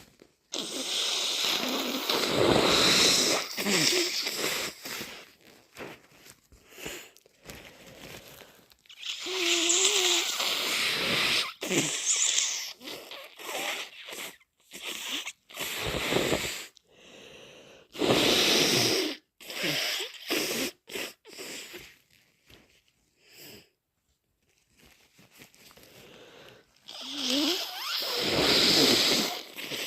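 A person with a head cold blowing their nose hard, four long loud blows, with shorter sniffs and snorts between them.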